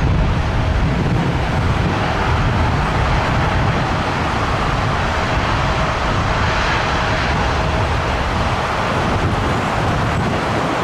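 Loud, steady jet engine noise from an airliner, with a faint held whine that fades out about eight seconds in.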